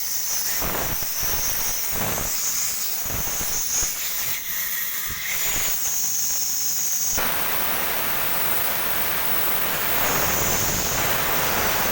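Light knocks from handling the valve parts, then about seven seconds in a sudden, steady, loud hiss of gas rushing out through the open cylinder valve.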